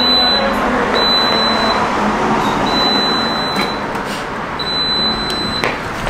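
Refrigerant recovery machine beeping four times in a high tone over a steady mechanical hum, signalling that recovery of the car's A/C refrigerant is finished, with 0.50 kg recovered, about half the 1000 g charge.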